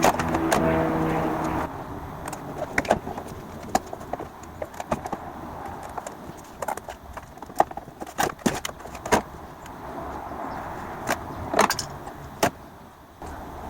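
Sharp metallic clicks and knocks, irregular and a few to the second, from tools and battery terminal hardware being handled while a car battery is fitted and connected. A steady hum with a few held tones stops about a second and a half in.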